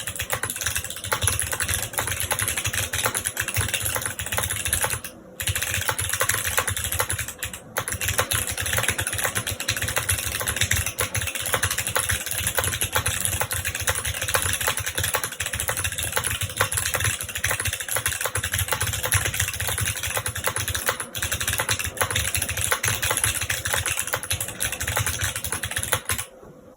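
Fast, continuous typing on a custom mechanical keyboard fitted with clicky Kailh Box Jade switches on a polycarbonate plate with no foam, under GMK keycaps: a dense stream of sharp key clicks. It breaks off briefly twice, about five and seven and a half seconds in, and stops just before the end.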